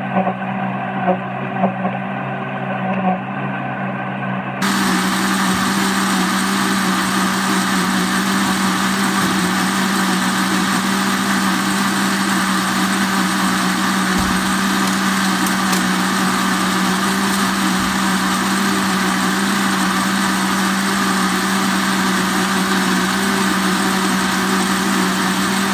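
Countertop electric blender running steadily as it blends garlic sauce, a constant motor hum with a whirring hiss. About four and a half seconds in it suddenly gets louder and harsher, then runs on evenly.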